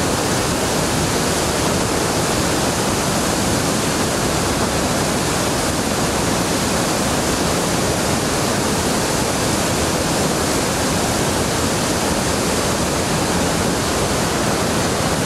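Water pouring through the spillway gates of the Kirkpatrick (Rodman) Dam and churning in the tailwater below: a loud, steady rush of falling water that does not change.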